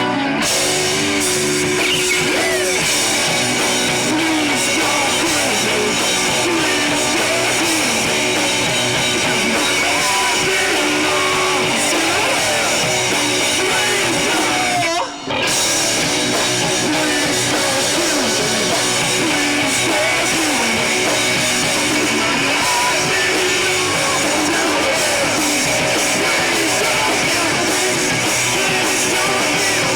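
Rock band playing live: loud electric guitars, bass and drum kit in a dense, continuous wall of sound. The sound drops out for a split second about 15 seconds in.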